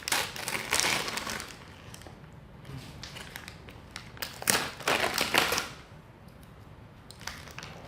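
Crinkling and crackling of a baked oven-cooking bag being handled and opened, in two bouts; the bag has gone brittle and crumbly in the oven.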